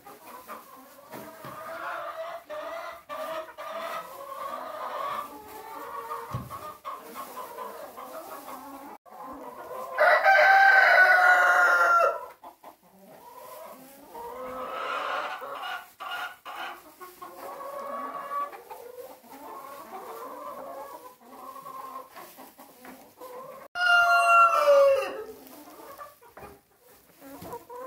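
Rooster giving its morning crow twice, once about ten seconds in and again near the end, the second falling away at its close. Under it, a flock of hens clucks continuously.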